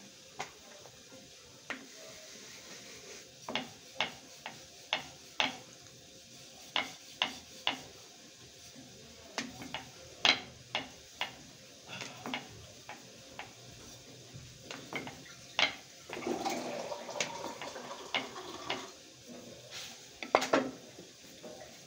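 Wooden rolling pin knocking and clattering on a wooden rolling board while roti dough is rolled out: a string of irregular sharp knocks, with a few seconds of rubbing about three-quarters of the way through.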